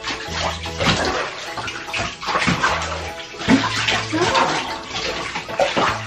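Water poured from a cup splashing over a wet cat in a bathtub as the shampoo is rinsed off, over background music with a repeating bass line.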